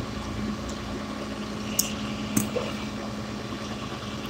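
A vehicle engine idling steadily, a low even hum, with two faint short ticks about two seconds in.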